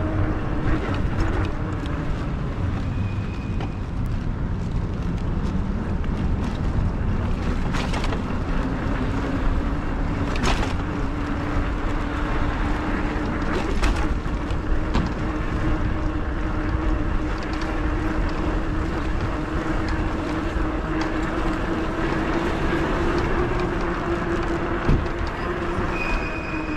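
E-bike on the move: wind and road noise with a steady motor hum that climbs slightly in pitch through the middle, and a few sharp clicks.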